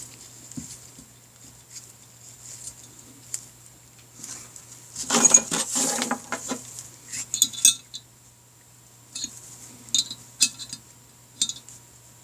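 Small metal tools and parts clinking and tapping on a workbench, with a denser, louder clatter about five seconds in and a few sharp clicks after it.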